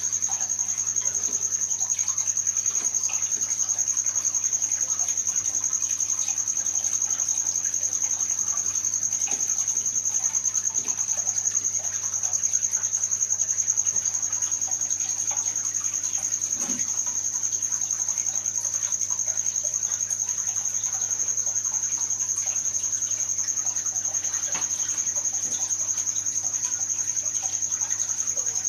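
A steady high-pitched whine, unbroken throughout, over a low, even electrical hum.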